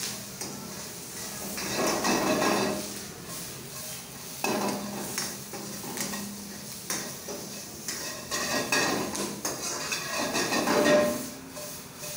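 Metal spatula scraping and clanking against a wok as vegetables are stir-fried over a gas burner, with sizzling that swells in several louder surges.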